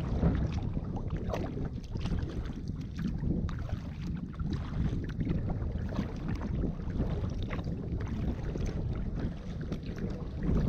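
Paddling a kayak: irregular paddle splashes and drips at the hull, over a steady low rumble of wind on the microphone.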